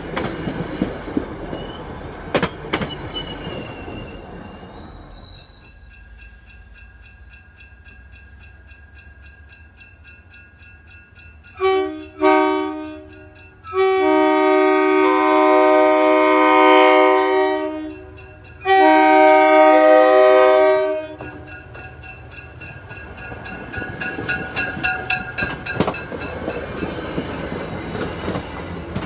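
Commuter train coaches passing close by, with wheels clicking over rail joints and a faint squeal. Then an approaching commuter locomotive sounds its multi-note air horn: two short toots, then two long blasts, the loudest part. Its coaches then roll past with clickety-clack wheel clicks.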